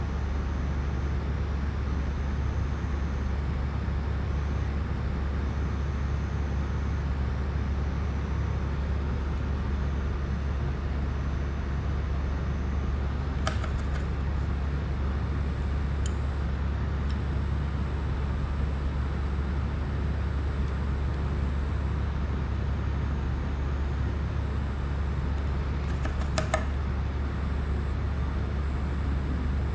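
A steady low hum with a hiss over it, unchanging throughout, with two brief light clicks, one about halfway through and one near the end.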